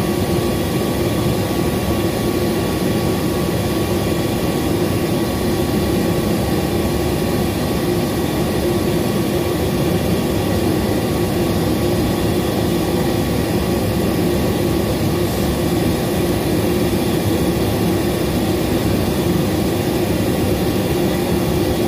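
Gas furnaces running in heat mode: ECM retrofit blower motor, draft inducer motors and lit burners together make a loud, steady rush of air with a steady hum.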